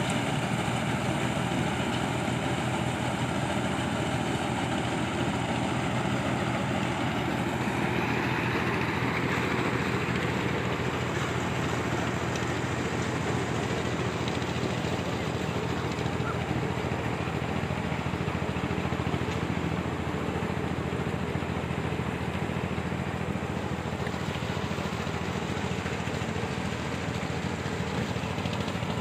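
Crown Hornet 7130 mini combine harvester, modified for cleaner grain, running steadily.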